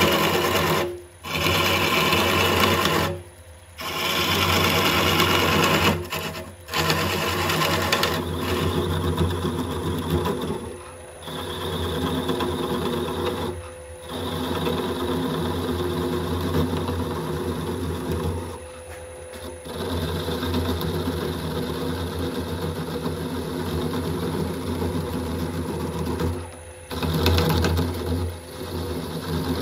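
Wood lathe spinning a birch log while a gouge cuts into it: a steady motor hum under the scratchy hiss of the cutting edge taking shavings. The cutting breaks off briefly several times, and is harsher in the first few seconds while the goblet's cup is being hollowed, before the stem is shaped.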